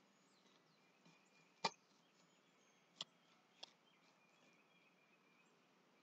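Three sharp knocks of a filleting knife against a wooden tabletop, the first about a second and a half in and the loudest, the other two close together a little later. Faint bird chirps in the background.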